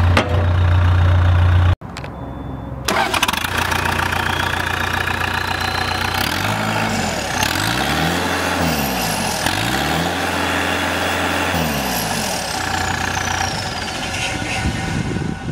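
Cat 246B skid steer's diesel engine running steadily, cut off abruptly about two seconds in, then running again. In the middle its pitch rises and falls twice as the engine is revved up and let back down.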